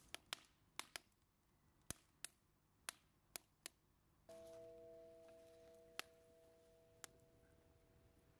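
Split kindling burning in a metal barrel stove, crackling with about a dozen sharp, irregular snaps. About four seconds in, a steady hum of a few notes comes in suddenly and slowly fades.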